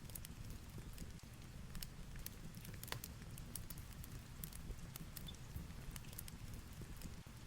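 Fireplace crackling, with irregular sharp pops, over a low steady rumble of heavy rain and storm.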